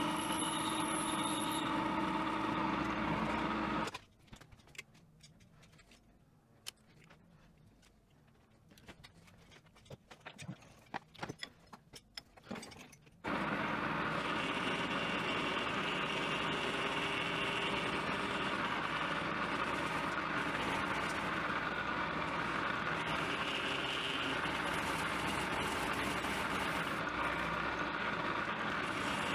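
Metal lathe running, turning a metal blank for a bicycle headset crown race, a steady machine sound with several steady tones. About four seconds in the running sound drops away to a quiet stretch of scattered clicks, and it starts again about thirteen seconds in and runs on steadily.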